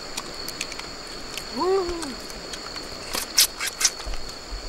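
Grilled crab shells being cracked and chewed by hand, with scattered clicks and a burst of sharp crunches about three and a half seconds in, over a steady high-pitched drone of insects. A short hummed 'mm' sound comes about two seconds in.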